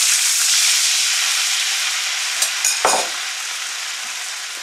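Soy-based sauce poured into a hot oiled wok over fried garlic and ginger, hissing and sizzling loudly on contact, the sizzle slowly dying down as the liquid cools the pan. A short knock about three seconds in.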